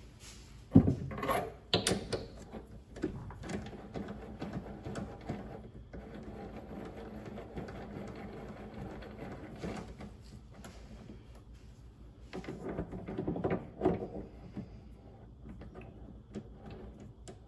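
Metal knocks and clatter as a steel round-bar blank is handled and chucked up in a mini lathe, with a sharp clank about a second in, scattered rattling after it, and another run of knocks near the end.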